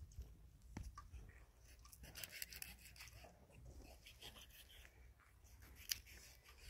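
Near silence, with a faint low rumble and a few light clicks and scrapes.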